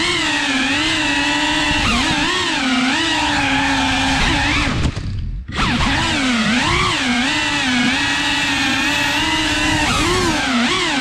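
FPV quadcopter's electric motors and propellers whining, the pitch rising and falling constantly with the throttle, heard from the quad's own onboard camera. About five seconds in the sound drops away for half a second, then comes straight back.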